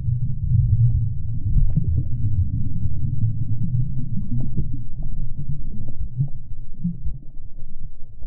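Muffled underwater rumble of moving water, picked up by a camera held below the surface, with faint scattered crackles.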